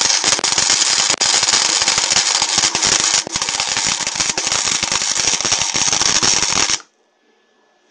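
MIG welding arc on gasless flux-core steel wire crackling steadily while it lays a bead, at low power (3 of 6) and 60% wire feed. It stops abruptly near the end.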